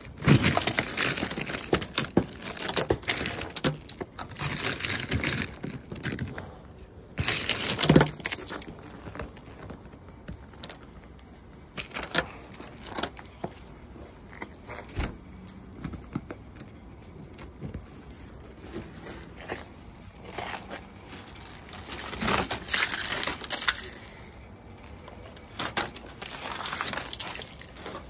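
Sheets of glaze ice cracking and breaking off a car's body panels: irregular bursts of crackling and crunching with a few sharp snaps, and broken pieces clattering down onto the concrete driveway.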